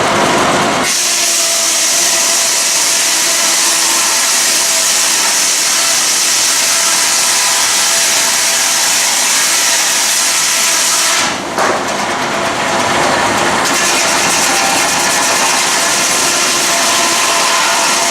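Steam traction engine belted to a sawmill, running with a steady steam hiss and a saw's constant whine. The sound shifts abruptly about a second in and again near 11 and 14 seconds.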